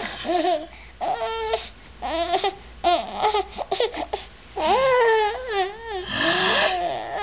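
Baby babbling and squealing in short high-pitched bursts that rise and fall, with a longer wavering call about five seconds in.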